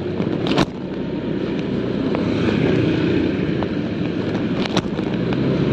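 Motorcycle riding at speed on a wet road: steady engine and wind-and-road rush on the microphone. Two sharp clicks, about half a second in and near the end.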